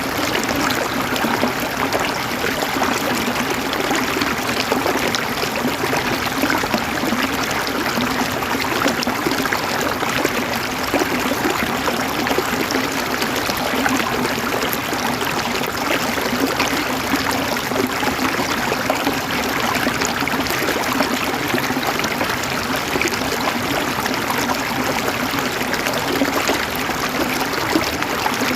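River water running over rocks in a steady, even rush with a fine gurgling, trickling texture.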